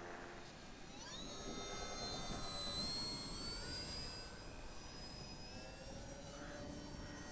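Small electric RC model Cessna 182's motor and propeller whining, rising sharply in pitch as it is throttled up about a second in, then holding a high, steady whine that fades slightly later on.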